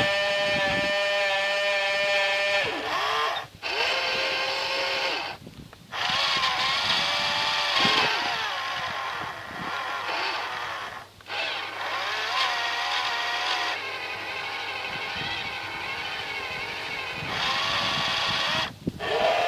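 Small electric motors and gearing of a 1:12 radio-controlled cable excavator whining, their pitch shifting and bending as the motors change speed, with several brief stops.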